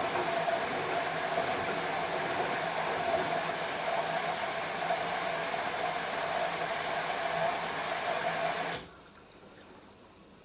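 LG F10B8QD1 washing machine running, a steady pump-and-water noise with a constant whine, which cuts off suddenly near the end.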